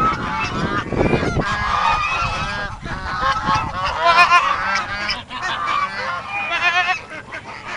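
A flock of domestic fowl calling all at once, many short overlapping honking calls without pause. There is a low rumbling bump about a second in.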